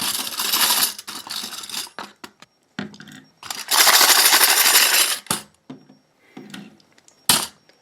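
Small metal sewing-machine attachments clinking and rattling as they are handled and packed back into their box, with a longer stretch of sliding and rattling in the middle and a single knock near the end.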